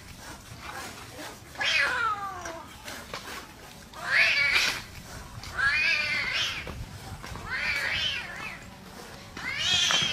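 Kitten crying out in distress while being harassed by monkeys: about five long, loud meows a second or two apart, the first falling in pitch.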